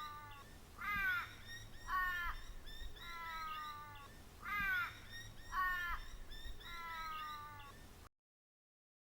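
A bird calling over and over, about once a second, each call short and harsh. The calls cut off abruptly about eight seconds in.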